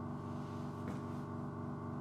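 Silent-type 750-watt air compressor running steadily: an even motor hum with a ladder of overtones, and a faint tick about a second in.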